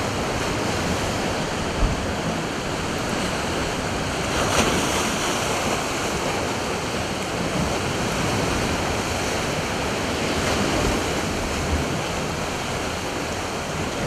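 Sea surf surging and breaking against rocks, a steady rush of foaming white water, with a louder surge about four and a half seconds in.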